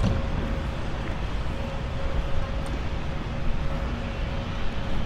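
Steady low rumble of outdoor city ambience, like engines or traffic at some distance, with a faint continuous hum.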